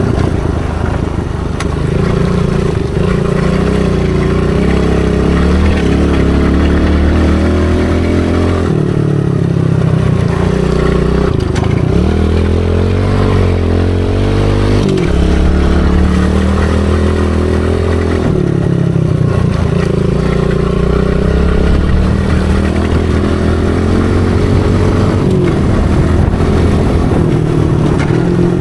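Small dirt bike engine running under way, its pitch climbing and dropping as the throttle is opened and eased, with a long rise about halfway through, heard close up from the rider's seat.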